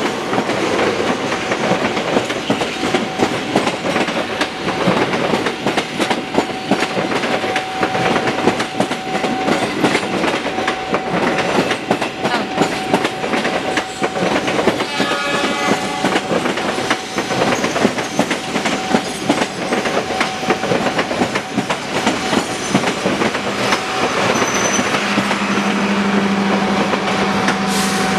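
Passenger coaches of the Argo Parahyangan rushing past close by, wheels clattering over the rail joints in a steady clickety-clack. A brief horn sounds about halfway through.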